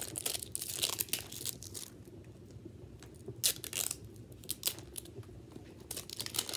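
Clear plastic film being peeled off a Mini Brands capsule ball, crinkling and tearing in irregular bursts.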